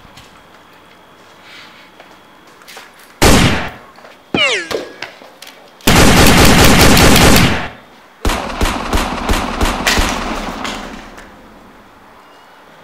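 Dubbed movie gunfire effects: a single loud shot about three seconds in, a falling ricochet whine just after, then a rapid burst of automatic fire lasting about a second and a half. A looser string of cracks follows and fades out.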